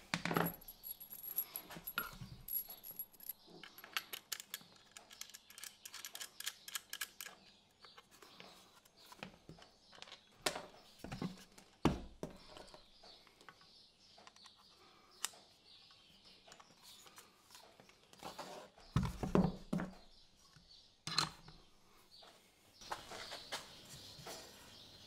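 Scattered small clicks, taps and rattles of cables and plug connectors being handled and plugged into a soldering station and its tool holder, with a few heavier knocks about three-quarters of the way through.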